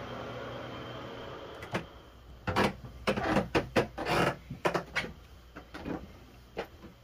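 Footsteps climbing wooden stairs onto a plank floor: an uneven run of knocks and thumps, loudest in the middle. A steady hum fades away in the first two seconds.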